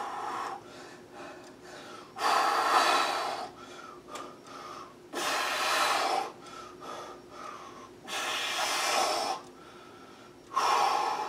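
A man breathing out hard through the mouth on each rep of lying dumbbell triceps extensions, one long breath about every three seconds, with quieter breathing in between.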